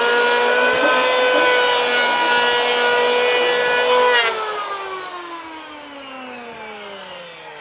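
Hand-held electric power planer running at a steady high whine as it shaves the sharp edge (arris) off a length of rough recycled hardwood. About four seconds in it is switched off, and its whine falls slowly in pitch and fades as the cutter block winds down.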